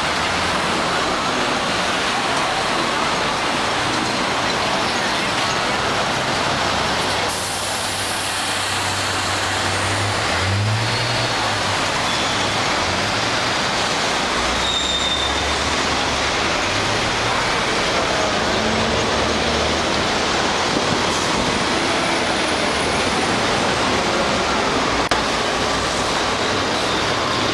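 Busy city street traffic: a steady wash of road noise with the low rumble of bus and car engines.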